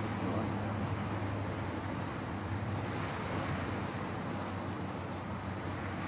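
Small waves breaking and washing onto the beach, a steady even surf noise, with a steady low rumble of wind on the microphone.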